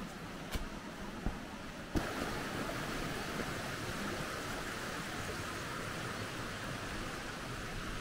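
Footsteps thudding down stone steps, about one every 0.7 seconds, for the first two seconds; then the steady rush of a shallow river running over rocks, louder from about two seconds in.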